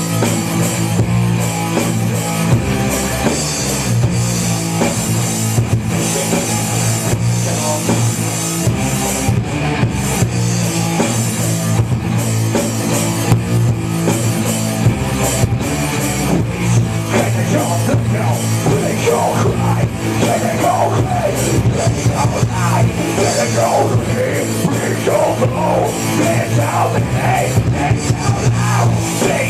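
Hard rock band jamming live: drum kit and electric guitar playing a loud, steady heavy groove, with a wavering melodic line rising above it past the halfway point.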